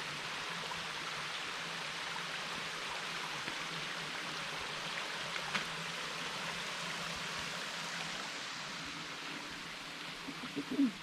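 Steady rushing of a small woodland waterfall and its stream, easing off a little near the end.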